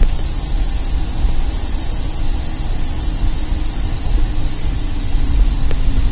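Car driving on a highway ramp, heard from inside the cabin: a steady low rumble of road and tyre noise.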